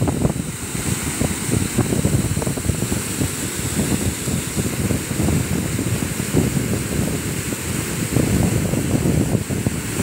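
Water of a waterfall cascade rushing steadily over rocks, with gusty wind buffeting the microphone underneath.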